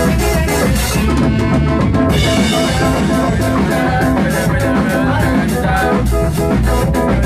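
Live band playing an instrumental passage, with drum kit and bass guitar prominent and electric guitar. The cymbals drop out briefly about a second in, then return.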